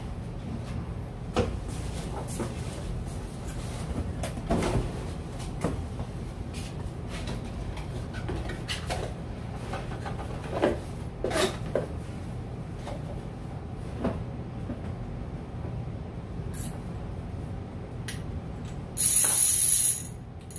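Cardboard packaging being handled and opened, with rustling and scattered sharp knocks. Near the end the gold fishing reel's clicker ratchets loudly for about a second and a half.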